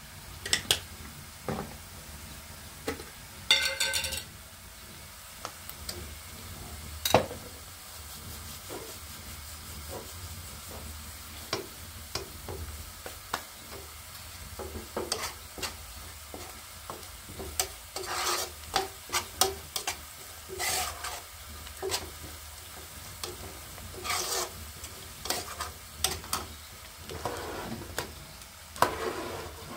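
Sliced onions frying in oil in a skillet, sizzling, while a metal spoon stirs them with repeated clicks and scrapes against the pan, the clatter busier in the second half.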